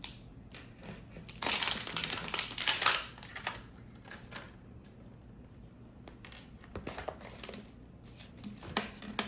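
Plastic toy packaging being crinkled and unwrapped by hand, with a dense stretch of crackling for about two seconds, then scattered small rustles and clicks.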